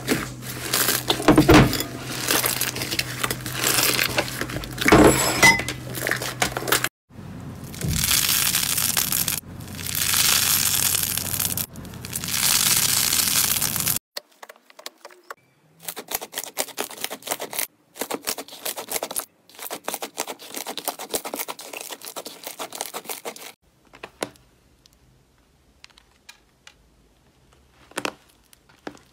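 Hands squeezing and pulling slime: squishing and squelching, then rapid crackling and clicking. Near the end a few sharp cracks come as a hardened shell on a slime heart breaks.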